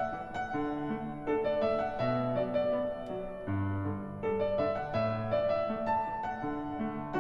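Background piano music: a gentle melody of struck notes over low bass notes.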